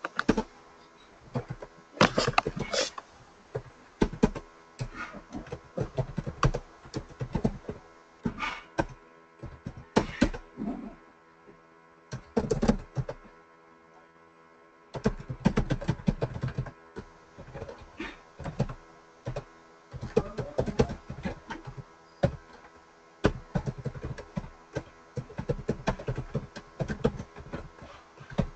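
Laptop keyboard typing in uneven bursts of quick key clicks, with short pauses between commands and a quieter gap about halfway through.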